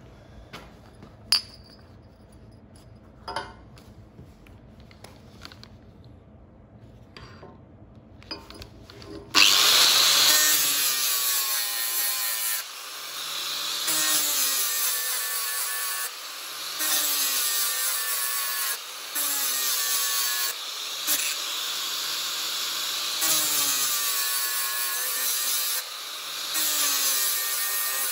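A few sharp knocks of metal being handled, then an angle grinder starts about nine seconds in and grinds the galvanized coating off the end of a steel tube. Its whine dips and rises and its loudness steps up and down several times as the disc is pressed on and eased off the metal.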